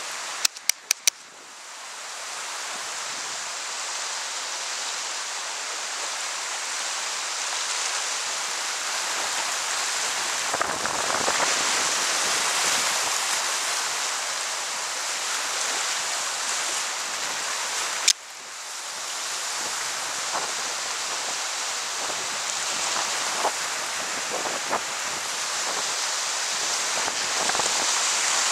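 Rushing white water of a river rapid, heard close up from a kayak running it: a steady, loud rushing hiss. There are a few sharp clicks near the start and one more about two-thirds of the way through.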